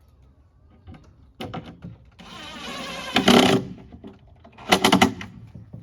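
Workshop knocks and clatter of wood and tools being handled: a few sharp knocks, then a rushing, scraping noise of about a second ending in a loud hit, and another quick cluster of knocks near the end.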